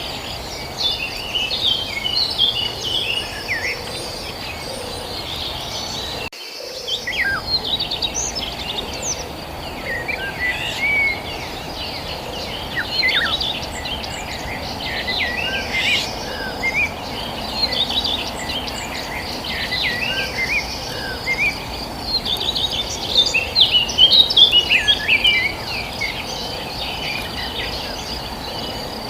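Many small birds chirping and twittering in short, overlapping calls, over a steady high-pitched drone and a constant low background hiss. The sound drops out briefly about six seconds in.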